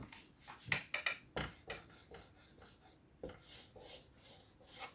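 Pencil compass scratching on drawing paper as a circle is drawn. The scraping comes in a series of short, irregular strokes with a few light clicks.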